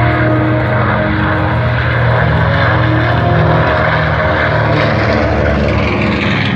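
North American B-25 Mitchell bomber's twin radial engines running at takeoff power, a loud, steady propeller drone.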